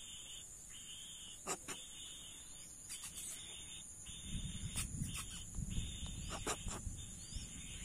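Steady high-pitched insect chorus of crickets or cicadas, with a second, lower buzzing band that keeps cutting in and out. A few sharp clicks sound through it, and a low rumble joins about halfway through.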